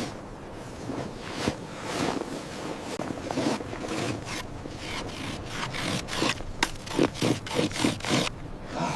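Irregular scraping and crunching strokes on packed snow, coming unevenly one after another.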